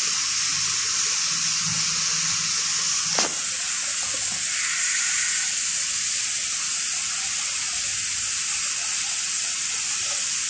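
Steady rushing hiss of water running into a rooftop water tank as it fills, with one sharp click about three seconds in.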